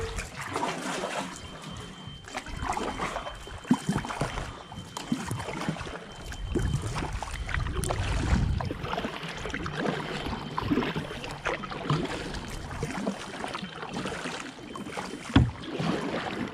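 Kayak paddling on calm river water: paddle blades dipping and pulling, with drips and trickling water. There are two sharp knocks, about four seconds in and near the end.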